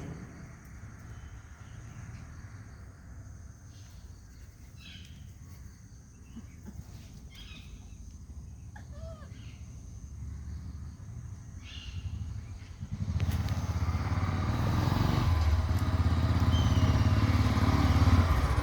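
A vehicle engine running with a steady low hum, growing much louder about thirteen seconds in, with a few faint short knocks and rustles before that.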